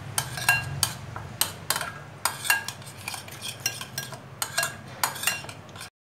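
A steel spoon stirring thick yogurt and spices in a glass bowl, clinking against the glass about three times a second. The clinks cut off suddenly near the end.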